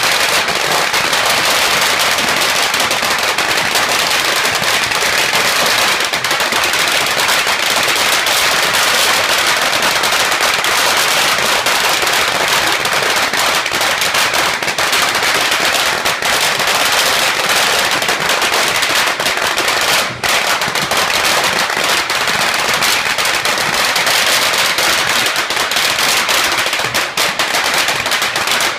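Long strings of Chinese firecrackers going off in a dense, unbroken rattle of rapid bangs. There is a brief dip about two-thirds of the way through and a few short gaps near the end.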